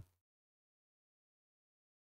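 Digital silence in a pause between spoken sentences.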